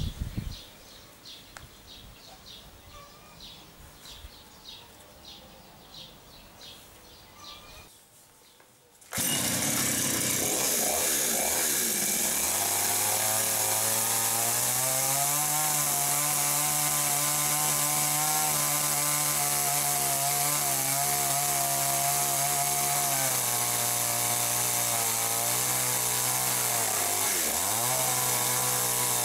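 Petrol chainsaw, a Champion, running at high revs as it cuts through a sawn timber beam. It comes in abruptly about nine seconds in, after faint outdoor sound. Its revs dip and recover twice near the end.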